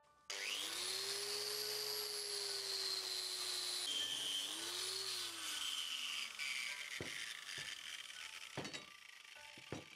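Angle grinder with a wire cup brush spins up and runs against a steel channel, stripping rust off it. About six seconds in it winds down with a falling whine. A few knocks follow.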